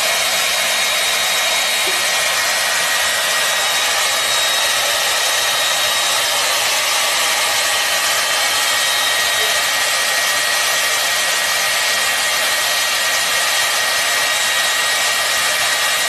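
Hair dryer running steadily: an even rush of blown air with a thin, high motor whine held at one pitch.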